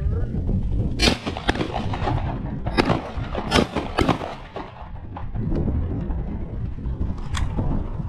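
Shotgun shots fired by at least two hunters into a flushing covey of quail: about five in the first four seconds and one more near the end. Wind rumbles on the microphone throughout.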